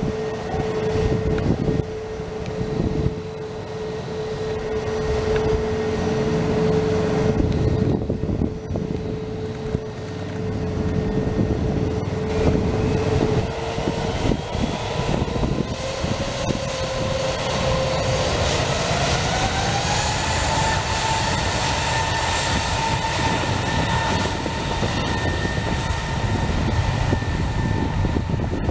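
Jet engines of an AirAsia Airbus A320 taxiing, a steady whine over a low rumble. About two-thirds of the way through, the whine rises in pitch and holds higher as the engines spool up, with thrust coming on as the airliner lines up for takeoff.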